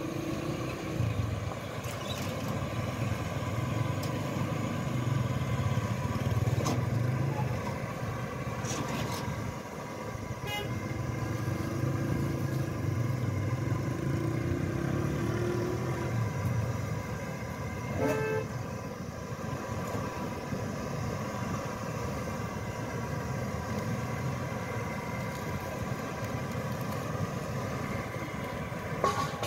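Street traffic: vehicle engines running and passing, with a brief car horn toot about two-thirds of the way through.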